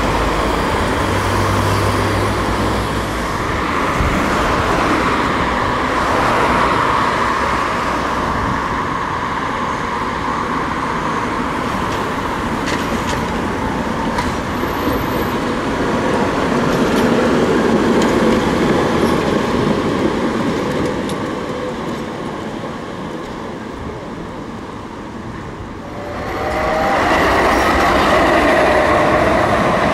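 Street traffic, with cars and an articulated Tatra KT4 tram rolling past on its rails. Near the end a second articulated tram passes close by, suddenly loud, with a whining tone over the rumble of its wheels.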